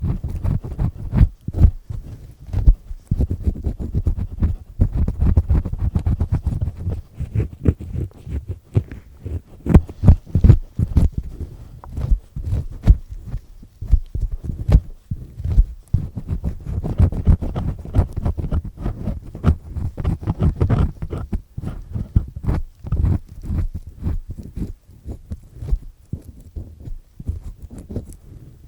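Earpick with a black triple-disc head scraping inside an ear canal, working earwax loose with dense, uneven crackling rasps and knocks over a deep rumble.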